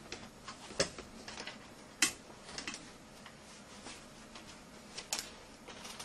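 Bible pages being leafed through: faint rustling with a few sharper flicks, the loudest about a second and two seconds in, and another about five seconds in.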